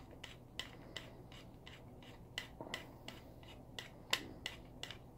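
Faint, irregular clicks and light rubbing as an e-brake release button is screwed by hand onto the rod inside a bike-grip e-brake handle, one click louder a little after four seconds in.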